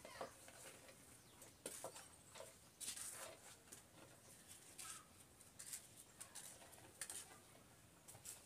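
Faint, irregular taps and clicks of a small knife cutting soya chunks and garlic cloves against a plastic stool top.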